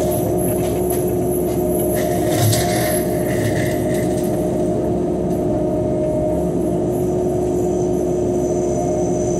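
Cat 311 excavator running a hydraulic flail mower head, heard from inside the cab: a steady machine drone and hum that holds level.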